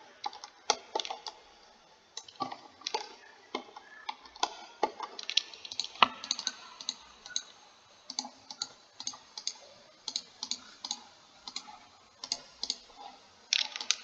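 Irregular clicking of a computer mouse and keyboard, a couple of sharp clicks a second, from selecting and navigating in 3D modelling software.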